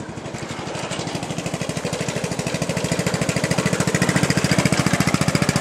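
Briggs & Stratton I/C 16.5 HP engine of a Craftsman LT1000 lawn tractor running under way, a rapid even pulsing that grows steadily louder as the tractor comes closer.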